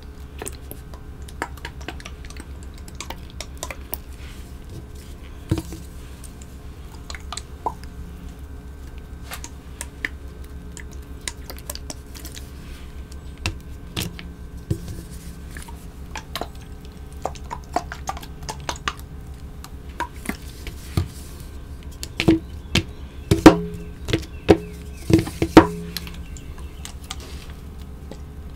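Scattered clicks and taps of wet, dye-soaked gym chalk being pressed and handled on a plastic cutting board, with a run of louder sharp knocks late on.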